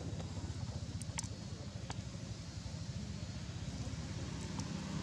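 A low, steady engine rumble, with a few faint clicks about one and two seconds in.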